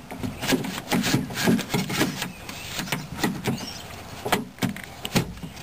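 A run of irregular clicks and knocks as the power window switch and door panel trim of a 1993 Subaru Legacy are handled and pushed into place.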